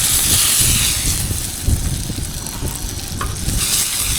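Masala-coated fish pieces sizzling as they fry in oil on a tawa. The sizzle is strongest about the first second, eases, and swells again near the end.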